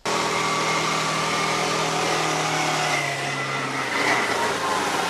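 Side-by-side utility vehicle's engine running steadily under a loud rushing noise that starts abruptly. The lowest engine tone fades out about four seconds in.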